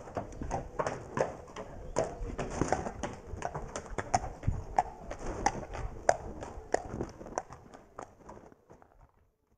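Horse's hooves clip-clopping at a walk, about three strikes a second, fading out near the end.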